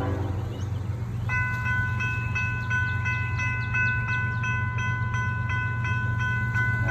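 Railroad grade-crossing bell starts ringing about a second in, striking evenly about three times a second, over a steady low rumble from the approaching diesel train. A locomotive horn blast cuts off at the very start.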